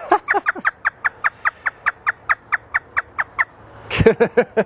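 African grey parrot mimicking a hysterical human laugh: a rapid run of short, falling 'ha' notes, about five a second for some three seconds, then a brief louder burst near the end.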